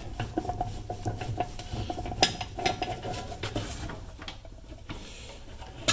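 A 5/16 nut driver turning out a rusted sheet-metal screw at a car's fuel filler neck: many small metallic clicks and scrapes, with a faint thin squeak through the first half.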